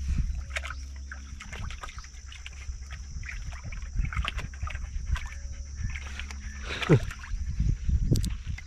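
Tazi sighthounds panting and drinking while standing in a shallow trough, with water sloshing around their legs. One short call falling in pitch comes about seven seconds in.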